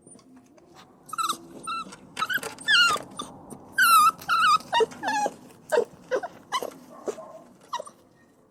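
Puppies crying and whining: a rapid run of short, high-pitched whimpers and yelps with wavering pitch, loudest in the middle, fading toward the end.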